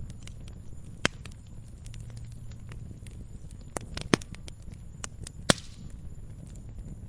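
Campfire crackling: irregular small pops and clicks over a low rumble of the flames, with three louder snaps, about a second in, about four seconds in and about five and a half seconds in.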